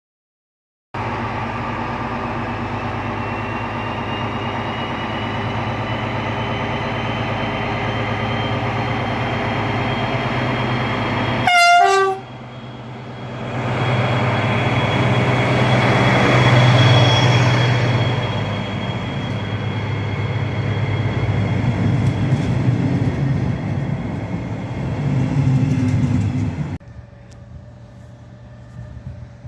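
A train at a railway station. First comes about ten seconds of steady running noise with several held tones. Near the twelfth second there is a short falling run of tones, then a louder passage of train noise that swells around seventeen seconds and cuts off suddenly near the end.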